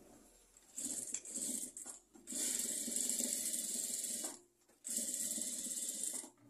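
Domestic sewing machine stitching in three spells. The first starts about a second in, the longest lasts about two seconds, and there are short pauses between them as the fabric is guided.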